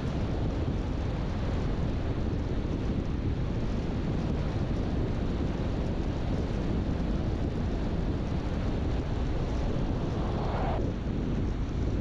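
Steady road and wind noise of a car being driven, heaviest in the low end. Near the end a higher hiss swells and then cuts off suddenly.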